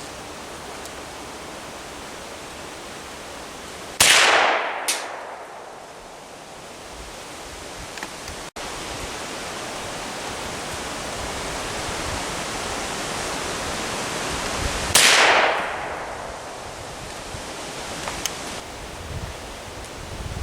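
Two shots from a Henry single-shot rifle in .308, fired with light, slow Trail Boss 'cowboy' loads, about eleven seconds apart, each ringing out and fading. A smaller sharp crack follows just after the first shot, and a steady wind-like noise fills the gaps.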